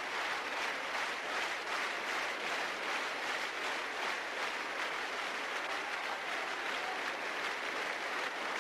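Arena crowd applauding steadily, a continuous wash of many hands clapping.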